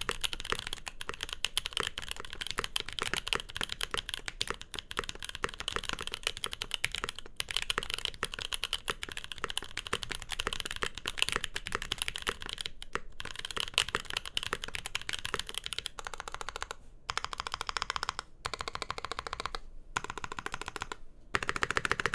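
Typing on a Mode 80 mechanical keyboard fitted with Gazzew Boba U4T tactile switches, built without its middle gasket: a fast, continuous clatter of keystrokes. In the last few seconds the typing comes in short runs with brief pauses between them.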